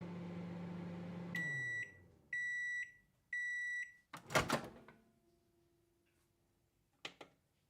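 Microwave oven finishing its cycle: the running hum winds down about a second in, then three steady high beeps about a second apart. A loud short clatter follows, then two faint clicks near the end.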